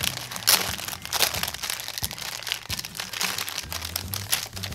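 Thin clear plastic film crinkling and crackling as it is peeled off a pink plastic parts sprue: a steady run of irregular crinkles.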